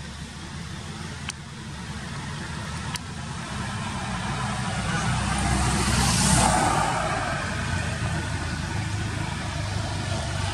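A motor vehicle passes by: a low engine rumble that swells to a peak with a rush of tyre and wind noise about six seconds in, then fades.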